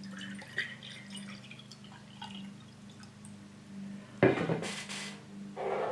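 Water poured from a pitcher into a glass jar, trickling and dripping. There is a louder brief noise at about four seconds in, with a steady low hum underneath.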